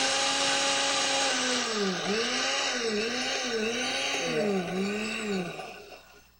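Countertop blender grinding soaked brown rice into coarse grits. The motor runs steadily, then its pitch dips and recovers several times as the load shifts. It winds down and stops near the end.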